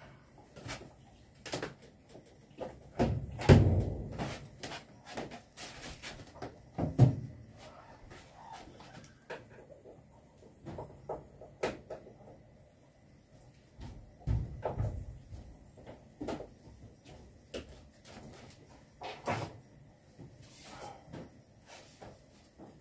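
Irregular knocks, clicks and rattles of hands working at a wall-mounted solar power board and its plastic breaker box, with the heaviest deep thumps about three and a half and seven seconds in.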